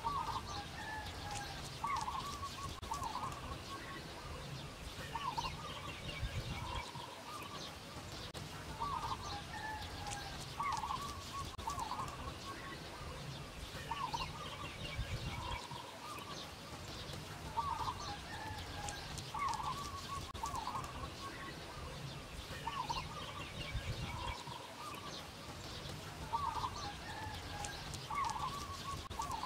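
Chickens clucking: short calls every second or two, often two or three close together, over a steady low background rumble.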